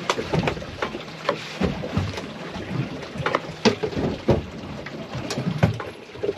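Water splashing and slapping irregularly against the side of a small boat at sea, with scattered sharp knocks.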